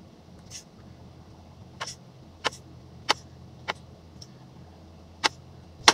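Chef's knife slicing through a mushroom and striking a plastic cutting board: about seven sharp knocks at uneven intervals.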